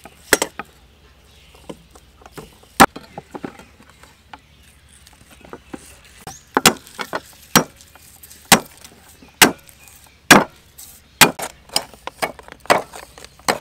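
A cleaver chopping on a thick round wooden chopping board: single sharp knocks, sparse at first, then about one a second in the second half.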